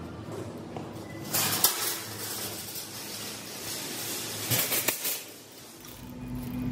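Wire shopping carts clattering as one is pulled free from a nested row: two bursts of metal rattling and clanking, one about a second and a half in and another near five seconds.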